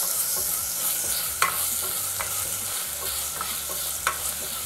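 Chopped tomatoes sautéing in hot oil with onions in a pan, sizzling steadily, with a few sharp clicks as they are stirred.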